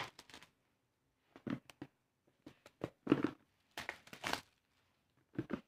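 Clear plastic shrink-wrap being torn and pulled off a phone's cardboard box, crinkling in about five short bursts with pauses between.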